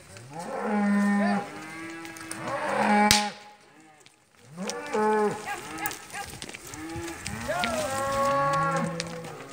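A herd of cattle mooing and bawling as it is driven along, several cows calling at once in long overlapping calls. There is a single sharp crack about three seconds in.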